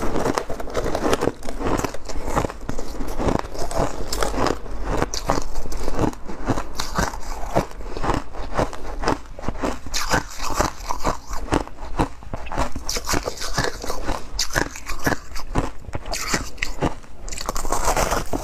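A person biting and chewing chunks of refrozen freezer-frost ice: a quick, irregular run of crisp crunches, several a second, with a fresh bite near the end.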